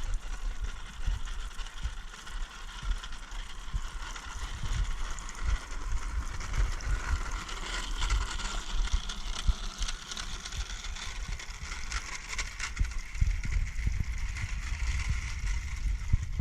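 Remote-control narrow-gauge garden-railway model locomotive running steadily along the track, with irregular low buffeting on the microphone.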